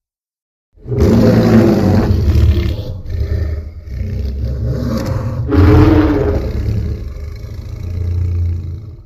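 Godzilla roar sound effect from the 2017–2018 animated Godzilla films: one long, deep roar that starts about a second in, eases in the middle, swells again, and stops abruptly at the end.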